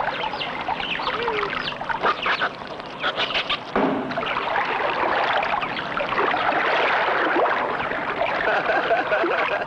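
Water splashing and churning, with harsh, squealing cries from a monkey being hauled out of the water.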